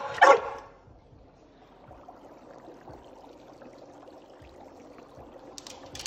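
A dog gives two short, high yelps, then only faint steady room noise. A loud hiss starts near the end.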